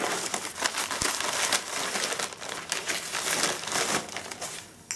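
Packing material crinkling and rustling as parts are unwrapped and lifted from a shipping box, with many small sharp crackles throughout.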